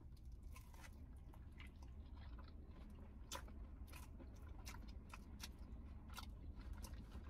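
Faint biting and chewing of brisket and mac and cheese egg rolls: soft crunches of the flaky wrapper about once a second over a low steady hum.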